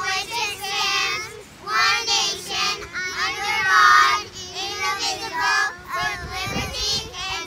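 A child singing in high-pitched phrases, over a steady lower held note.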